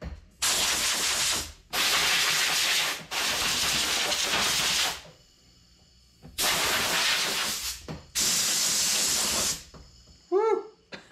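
Compressed-air blow gun fired in five hissing blasts of about one to two seconds each, with a longer pause midway, blowing sanding dust off a Bondo-repaired vinyl dash pad before priming.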